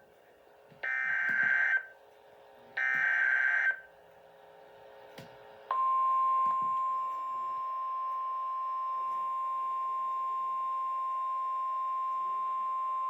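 Emergency Alert System SAME header: two bursts of screeching digital data, each about a second long and a second apart. After a faint click, a steady, piercing EAS attention tone begins a little before halfway and holds.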